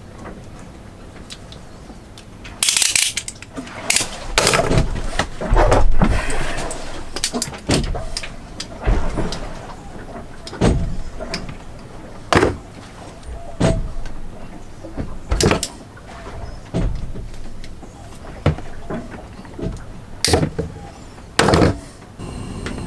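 Handling noises as a spiral steel-reinforced plastic hose is worked by hand: irregular knocks, clicks and short scrapes every second or two.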